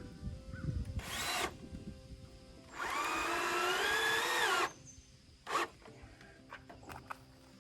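A power drill runs in three pulls: a short burst, then a run of about two seconds that winds up, holds and winds down, then another short burst. Some low knocks come first.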